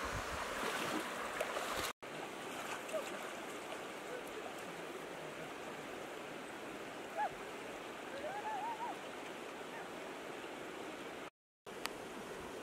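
Steady rush of fast-flowing, muddy floodwater in a stream. A few short, high calls come through about two thirds of the way in. The sound cuts out briefly twice, near the start and near the end.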